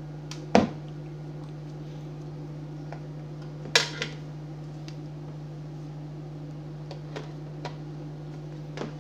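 Sharp clicks and knocks of cable plugs being pulled and the wireless microphone receiver being handled, with two louder knocks about half a second and nearly four seconds in, and a few fainter clicks later. A steady low hum runs underneath.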